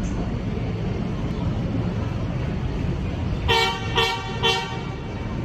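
Three short horn toots about half a second apart, over a steady low rumble.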